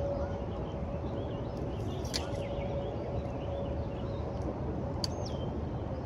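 Steady rushing outdoor background noise with faint birds chirping and a faint steady hum underneath. A sharp click comes about two seconds in, and a short falling whistle about five seconds in.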